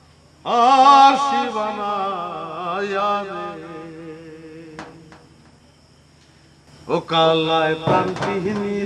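A man sings one long, drawn-out wavering note with no accompaniment, fading away over about four seconds. About seven seconds in, singing starts again with sharp percussive strikes.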